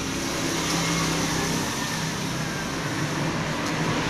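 A motor vehicle's engine running, a steady low hum over a hiss that grows slightly louder.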